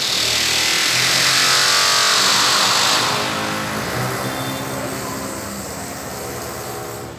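A loud engine-like noise, a hum with a strong hiss over it, loudest in the first three seconds and then slowly fading.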